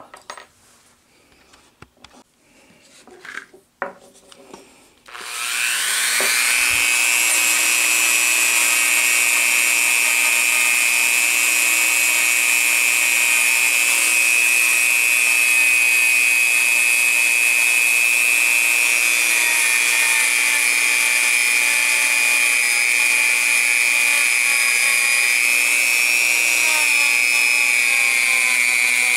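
A Dremel rotary tool with a soft stainless steel wire brush switches on about five seconds in, spins up quickly and runs at a steady high whine while brushing the broken braze joint of the steel cut nails clean. Its pitch wavers slightly near the end. Before it starts there are only a few faint handling clicks.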